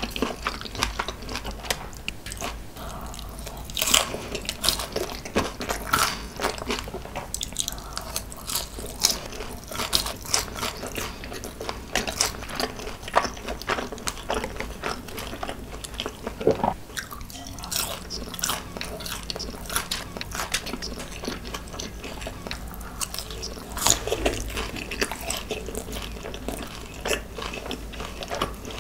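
Crunchy chewing of crispy Korean fried chicken (dakgangjeong), with many sharp, irregular crackles as the coated pieces are bitten and chewed.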